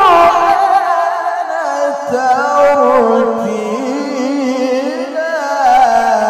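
Male Quran reciter (qori) chanting a long melismatic phrase of tilawah through a microphone, the voice wavering in constant ornaments and winding slowly down in pitch across the phrase.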